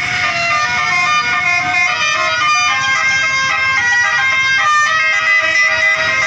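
A bus's telolet horn, a set of multi-tone air horns, playing a tune of held notes one after another over low rumbling engine and road noise.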